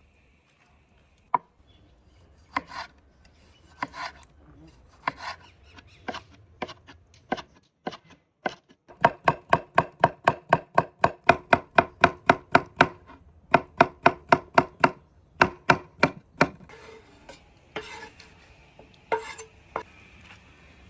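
Knife chopping on a cutting board. Single strokes come about a second apart, then a fast, even run of about four chops a second, then a few slower strokes near the end.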